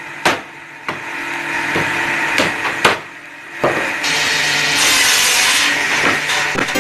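Wood being worked by hand: a few sharp knocks, then from about four seconds in a steady rasping hiss against wood.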